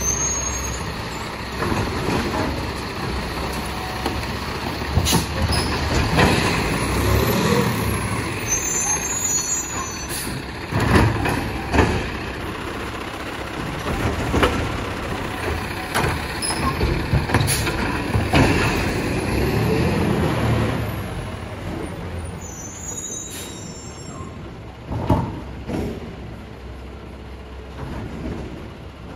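Labrie Automizer automated side-loader garbage truck at work: the engine revs up and down twice while sharp knocks and clanks come every few seconds.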